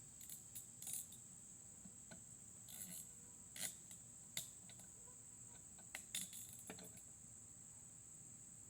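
Scattered light metallic clicks and clinks of tools and small engine parts being handled, the loudest a few seconds in, over a steady high chirring of crickets.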